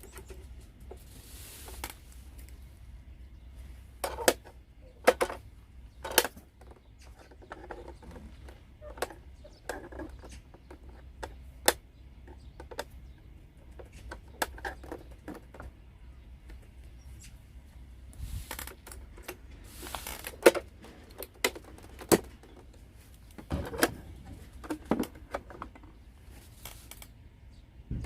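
Scattered light clicks and knocks of small objects being handled and set down, with a couple of brief rustles and a steady low hum underneath.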